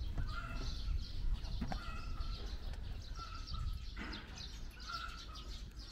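A bird singing short repeated phrases, about one a second, each a brief held note with quick high chirps, over a steady low rumble of background noise.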